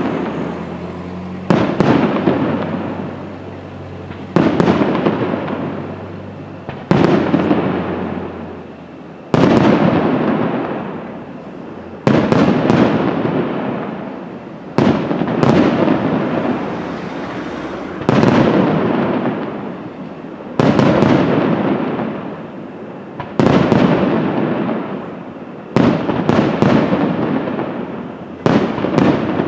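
Aerial firework shells bursting about every two and a half seconds, each a sharp bang followed by a long rumble that dies away.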